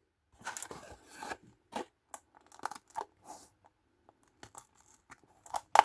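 Plastic blister packaging and rubber ties being handled while die-cast toy cars are freed from the tray: irregular small clicks, crinkles and short rustles, with a sharper click near the end.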